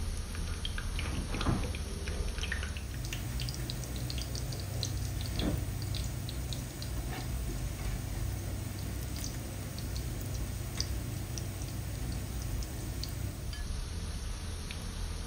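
Sliced onions frying in hot oil in a large pot: a steady sizzle full of small pops and crackles. A spatula stirring the onions scrapes through them now and then, most clearly twice in the first half.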